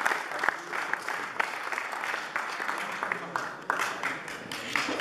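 Audience applauding, a dense patter of hand claps with some sharp single claps standing out.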